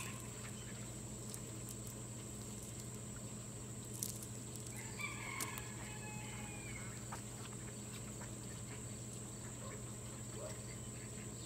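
A rooster crowing once, faintly, about five seconds in, with a sharp knock just before it. A steady high whine and a low hum run underneath.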